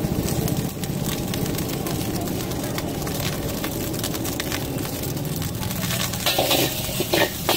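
Metal ladle scraping and clattering against an iron wok as rice is stir-fried, over a steady low background. The clatter grows louder and busier about six seconds in as the stirring picks up.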